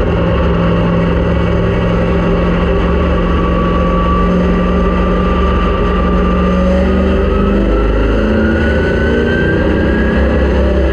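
Race car engine running hard at speed, loud and continuous, its pitch climbing slowly through the second half as the car accelerates.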